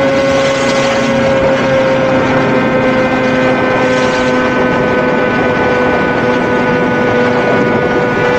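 Suzuki GSX-R1000 superbike's inline-four engine running at steady high revs, its note drifting slowly lower, with wind rushing.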